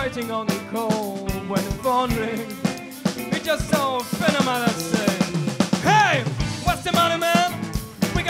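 Live rock band playing: a drum kit keeps a steady beat under electric bass and electric guitar, with a lead melody that slides up and down in pitch.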